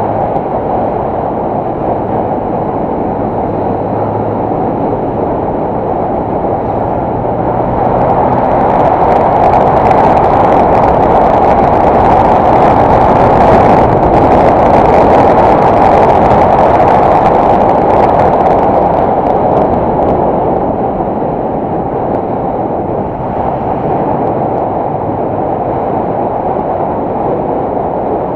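Yamaha M-Slaz motorcycle ridden at road speed: heavy wind rush on the microphone, with the single-cylinder engine's steady hum under it in the first few seconds. The rush swells about a third of the way in, stays up for several seconds, then eases again.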